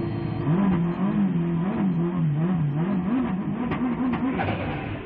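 Subaru Impreza WRC's turbocharged flat-four engine heard from inside the cabin, held on the throttle at the start line with the revs rising and falling about twice a second. Near the end the car launches off the line.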